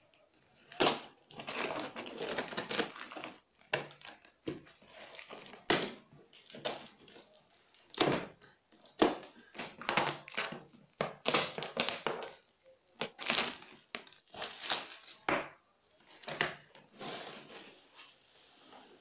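Plastic stretch wrap around a cardboard box being cut with a kitchen knife and torn off, crinkling in irregular bursts, then the cardboard box being pulled open.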